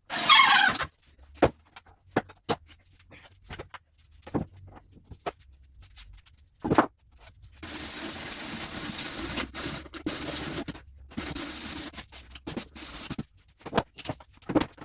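A handheld power tool working wood, running steadily for about five seconds in the second half with a short break partway. Before it there is a brief squeal at the start, then scattered knocks and clicks.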